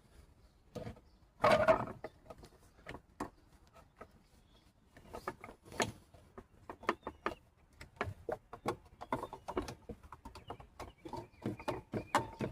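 Handling noises while the pump's connections and hose are being set up: a louder clatter about a second and a half in, then a run of irregular clicks and knocks.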